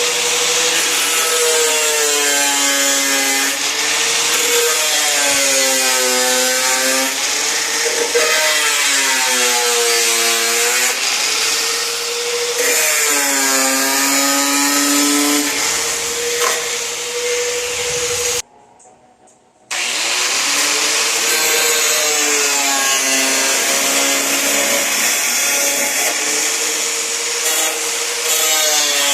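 Angle grinder with a cutting wheel cutting through a car hood. Its motor whine repeatedly sags in pitch as the wheel bites in and climbs back as it is eased off. The grinder cuts out for about a second roughly two-thirds of the way through, then cuts again.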